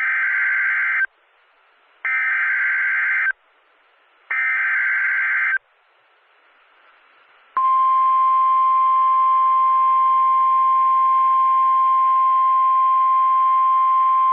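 Emergency Alert System SAME header: three buzzy digital data bursts, each about a second long and about two seconds apart. About 7.5 seconds in, the steady single-pitch National Weather Service 1050 Hz warning alarm tone starts and holds. This sequence signals that a severe thunderstorm warning is being issued and can trigger alert receivers automatically.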